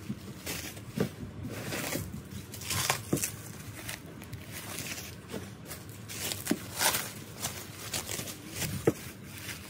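Plastic bubble wrap crinkling and rustling in irregular handfuls as a ceramic cup is unwrapped, with a few light knocks.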